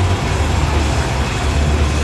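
Army Black Hawk helicopter running on the ground with its main rotor turning: a loud, steady low drone with a rushing turbine hiss over it.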